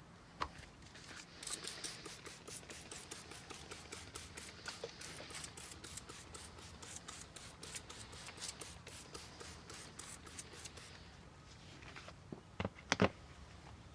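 Double-action trigger spray bottle pumped rapidly again and again, spraying plain water onto car paint in quick hissing spurts, several a second. A couple of sharp knocks near the end.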